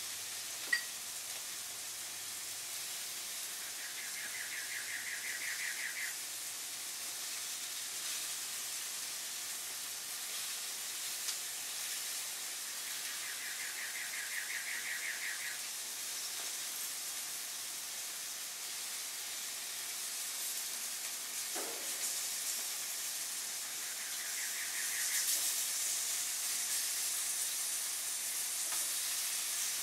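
Chicken sizzling on a hot gas grill, a steady hiss as marinade is brushed on and drips onto the heat. The sizzle swells louder near the end.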